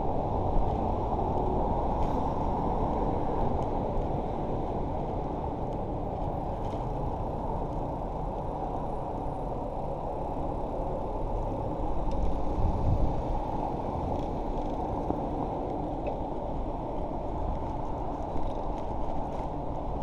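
Steady wind and rolling noise of a bicycle ride picked up by a body-mounted camera: an even, low rush, with a louder low rumble briefly about twelve seconds in.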